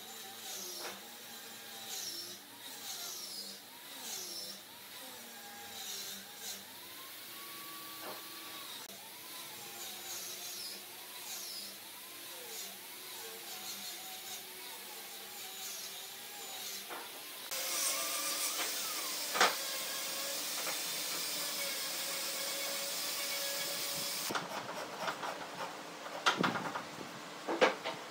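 Short, repeated rising-and-falling animal calls, then an electric power tool that starts abruptly, runs steadily with a high hiss and a hum for about seven seconds, and cuts off, followed by a few sharp knocks near the end.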